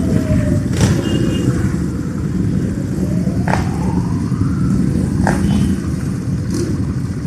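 Several motorcycles riding slowly past in a column, their engines making a dense low rumble, with one engine's note falling and then rising again as it revs. Four short sharp cracks sound over the top.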